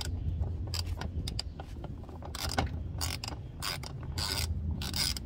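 Socket ratchet with a 10 mm socket, set to loosen, clicking in short runs as it backs out bumper screws; the clicking gets busier from about halfway in.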